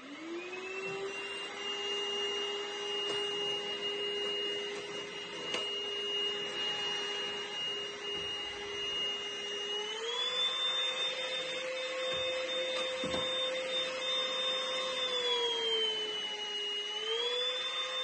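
Airbot Supersonics 3.0 cordless stick vacuum switched on, its motor spinning up to a steady high whine. About ten seconds in it steps up to a higher, louder pitch, then dips back down and rises again near the end.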